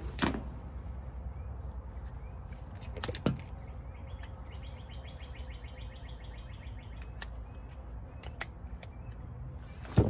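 A bird trilling, a quick run of evenly spaced high notes about halfway through, over a steady low hum. A few sharp knocks and crackles come through, the loudest right at the start and about three seconds in.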